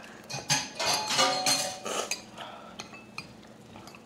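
Wooden chopsticks clinking and scraping against ceramic bowls as noodles are eaten, a dense run of clicks in the first two seconds, then only a few small taps.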